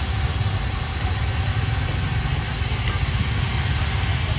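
Steady low rumble of a motor vehicle engine running, with an even haze of street noise over it.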